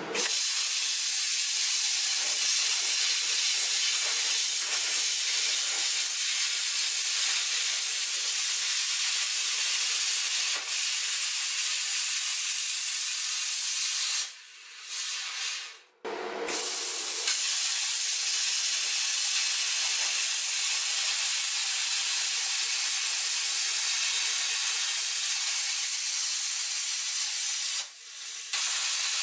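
A plasma cutter hissing steadily as its arc and air jet cut through rusted sheet-steel floor. The hiss stops for about two seconds about halfway through, resumes, and breaks off again briefly near the end.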